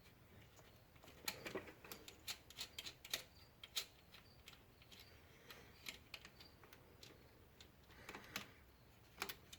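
Hand ratchet clicking faintly in short, irregular bursts with light metal taps as a 12 mm alternator mounting nut is worked loose, the clicks bunched about a second in and again near the end.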